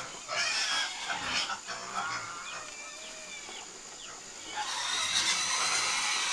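Farm animals calling: chickens clucking in short chirps, then a louder run of squealing from pigs starting about two-thirds of the way in.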